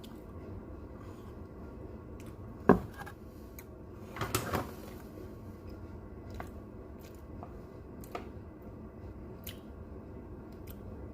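A person eating an almond macaroon: a few quiet mouth and handling noises over a steady low hum, with one sharp click about a third of the way in and a short cluster of louder noises near the middle.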